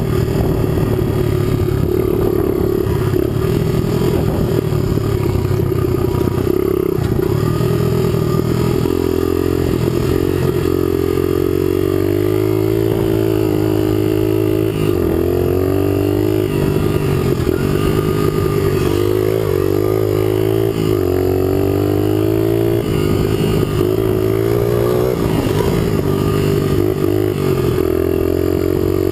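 Dual-sport motorcycle engine running at trail speed, its pitch rising and falling again and again as the throttle is opened and closed through gear changes.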